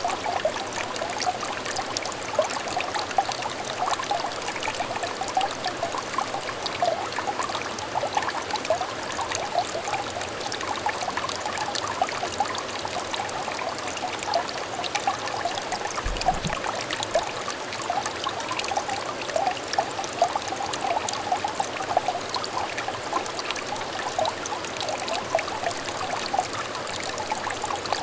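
A small, clear stream trickling and babbling steadily: a dense, even patter of little splashes and bubbles.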